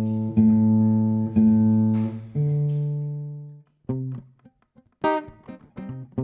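Nylon-string classical guitar being tuned: one low open string plucked over and over, about once a second, then a higher string plucked and left to ring out. From about four seconds in, short fingerpicked notes begin.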